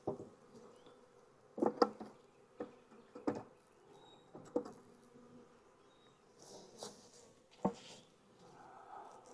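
Honeybees buzzing around the hive in a steady hum, with about half a dozen sharp knocks and clicks scattered through, the loudest pair nearly two seconds in.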